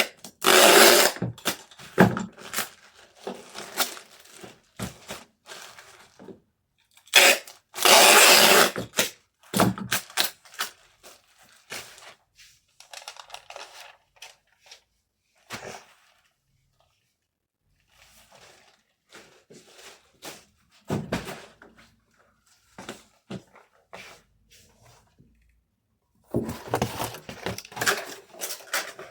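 Packaging materials being handled at a packing table: rustling and crinkling, with scattered taps and knocks. There are two longer, louder stretches of crinkling near the start and about a third of the way in, and busy handling again near the end.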